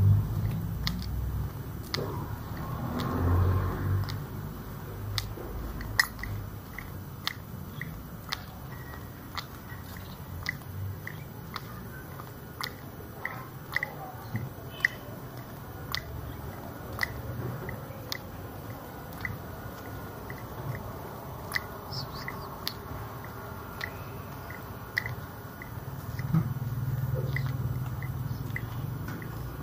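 Footsteps of someone walking along a street at a steady pace, about two steps a second. A low rumble swells briefly twice, a few seconds in and near the end.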